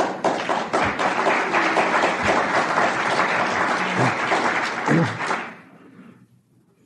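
Audience applauding, a dense patter of many hands that dies away about five and a half seconds in.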